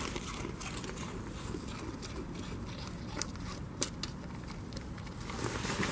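A goat kid chewing food, with scattered faint crunches and clicks over a steady low rumble.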